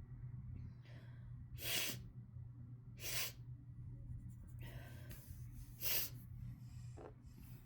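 Short, sharp nasal bursts from a person in a tickle-induced (chhinkni) sneezing fit. The three stronger bursts come about a second and a half apart and the last is the loudest, with fainter ones in between.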